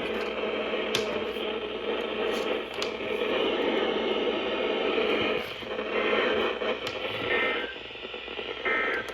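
Steady static hiss from a poorly tuned radio receiver, limited to a narrow radio-channel band, with scattered faint crackles and clicks.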